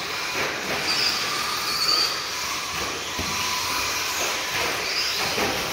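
RC stadium trucks racing on a dirt track: short high-pitched motor whines that rise and fall as the trucks speed up and slow down, several overlapping, over a steady hiss.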